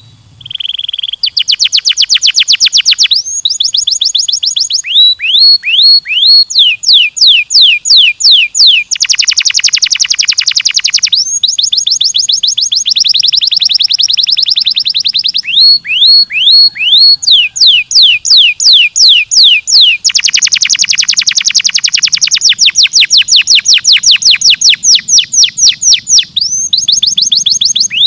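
Domestic canary singing fast trills: phrases of one to three seconds, each a run of the same note repeated rapidly, some as rising chirps and some as dense rolls, with short breaks between phrases.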